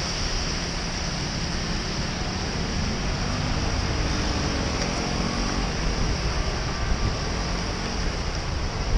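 Steady city traffic noise heard from a moving bicycle on a rain-soaked road: a continuous hiss of wet tyres and spray over the low rumble of passing motor traffic.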